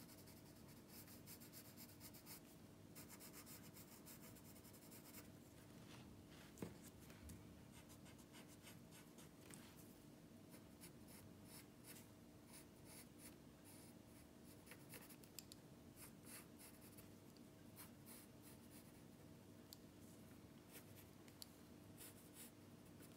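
Faint scratching of a graphite pencil drawing strokes on graph paper, over a steady low hum.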